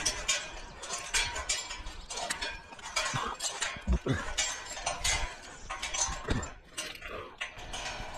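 Irregular metallic clinks and knocks of a climber's hands and climbing gear on a galvanized steel lattice tower, a dense run of short sharp clicks.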